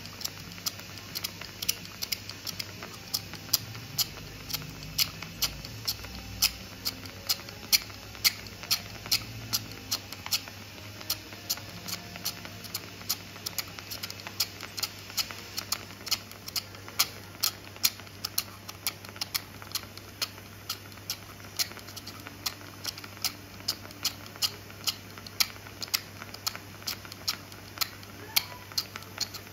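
Safescraper bone scraper drawn again and again across bone, each stroke a short sharp scrape, roughly three a second, as it harvests bone chips.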